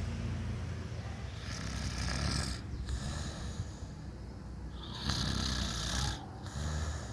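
A sleeping person snoring, a snore roughly every three seconds.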